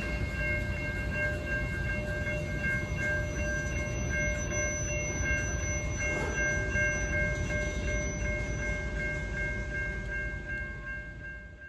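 Train passing with a heavy, steady rumble and several sustained high tones held over it; the sound fades out near the end.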